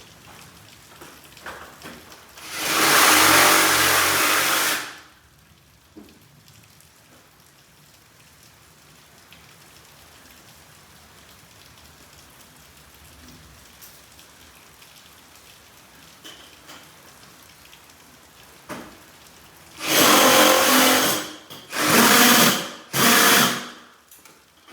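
Power drill driving fasteners during a garage door installation, running in four bursts: one of about two and a half seconds near the start, then three short runs in quick succession near the end.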